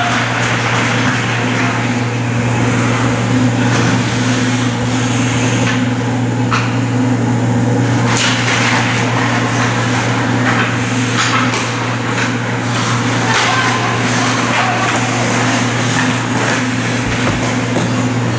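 Ice hockey play on a rink: skates scraping and sharp clacks of sticks and puck, scattered irregularly over a steady low hum and a background of spectator chatter.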